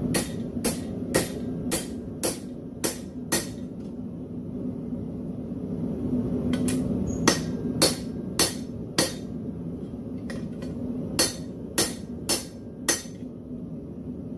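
Hand hammer striking a split railroad spike held in tongs on a steel anvil, in three runs of sharp blows about two a second, with pauses of a few seconds between the runs.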